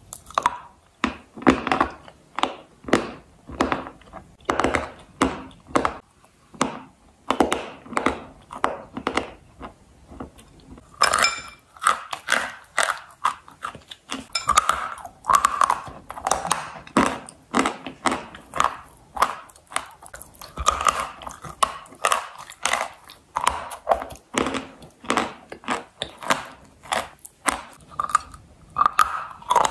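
Close-miked chewing of dry, crispy clay: a steady run of crunchy chews about two a second, with a sharp crunchy bite about a third of the way in.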